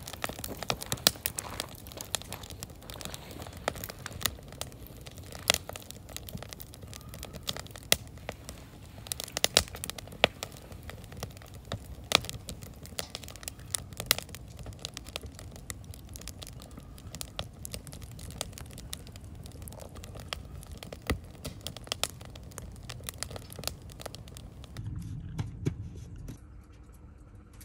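Wood fire crackling in a stainless steel fire bowl, with frequent sharp irregular pops from the burning logs. Near the end it gives way to a short low rumble as a hand pats a cardboard box of wood pellets.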